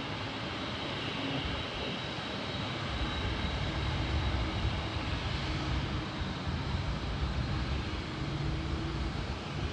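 Boeing 747-8 jet engines running: a steady broad rush of jet noise, with a deep rumble that builds about three seconds in and then holds.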